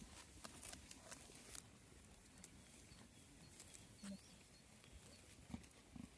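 Near silence with faint scattered clicks and a few soft thumps from goats grazing and moving about on the grass, and a short high chirp about four seconds in.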